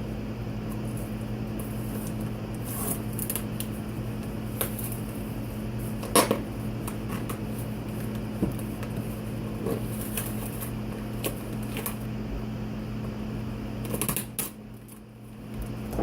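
Pocket knife cutting and scraping through the tape and cardboard of a shipping box: scattered short scrapes and clicks, the sharpest about six seconds in, over a steady low hum that drops out briefly near the end.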